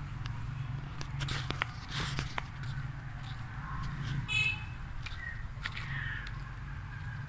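Footsteps on a dry dirt path, scattered short scuffs and clicks over a steady low rumble, with one brief high chirp a little past the middle.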